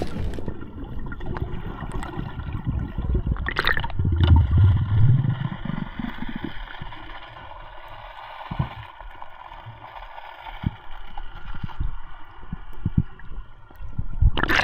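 Muffled underwater sound heard through a submerged camera: water gurgling, with a faint steady whine. A low rush comes about four seconds in, and scattered soft clicks follow in the second half.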